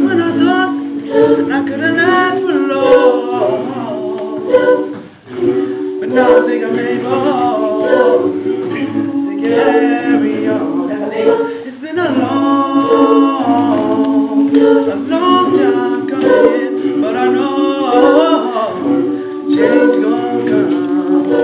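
High-school choir singing gospel a cappella: the group holds sustained chords while a higher line moves over them, with brief breaks about five and twelve seconds in.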